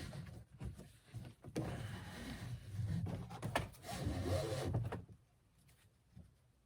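Nylon tubular webbing being pulled through a kayak's hip pads and back band, a scraping, rustling slide in several long pulls that stop about five seconds in.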